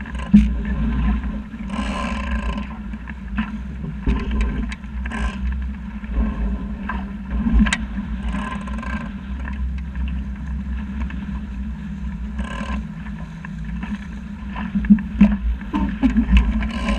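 Wind buffeting the microphone over water rushing along the hull of a D Zero sailing dinghy under way, with short splashy rushes every second or two as it hits the chop.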